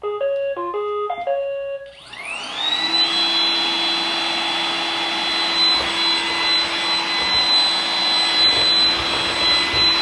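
iRobot Roomba 980 robot vacuum playing its short start-up tune of stepped beeps as spot cleaning is started. About two seconds in, its vacuum motor spins up with a rising whine and then runs steadily.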